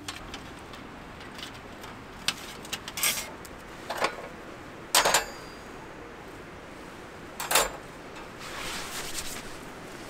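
A few sharp knocks and clatters of objects being handled, over a steady background hiss; the loudest comes about five seconds in.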